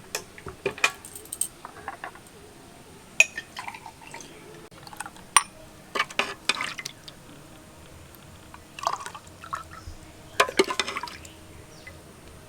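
Frothy churned yogurt drink (ghol) being poured into glasses in several short spells, with sharp clinks of glass between them.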